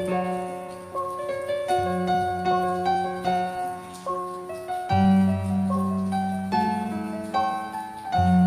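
Instrumental background music: piano or keyboard notes struck over sustained bass notes, the bass changing about five seconds in and again near the end.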